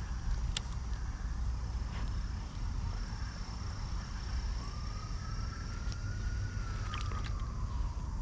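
A faint siren in the distance: one slow wail that rises about halfway through and then falls away, over a steady low rumble, with a few light clicks near the end.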